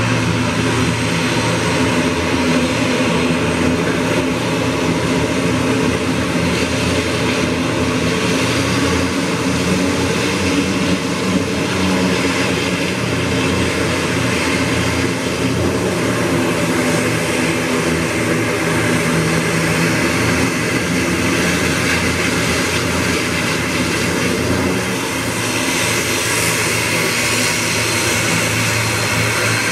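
Twin turboprop engines of a CASA C-295 military transport running at taxi power: a steady propeller drone with an even hiss on top.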